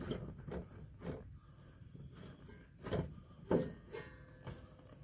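Scattered knocks and rustles of hands and tools working at a pickup's rear suspension, with two louder thuds about three and three and a half seconds in.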